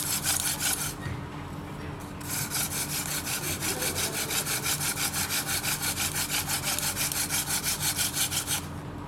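Hand-drill fire-by-friction set: a thin wooden spindle spun back and forth between the palms, grinding in the notch of a hearth board of the same wood, in a fast, even rhythm of scraping strokes that breaks off twice for about a second. It is grinding out wood powder but is not yet smoking.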